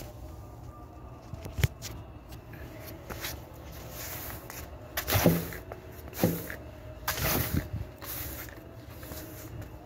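Long-handled broom sweeping sand and dust off a tiled floor: a few scratchy swishes between about five and seven and a half seconds in, with a sharp tap a little before two seconds.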